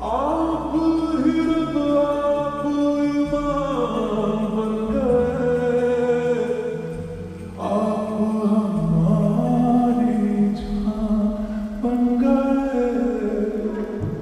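Music: a Hindi film love song with a sung vocal melody, long held and gliding notes over instrumental backing.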